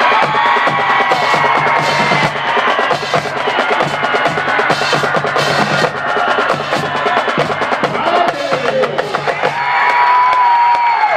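Band music: dense drums and percussion under long held horn notes.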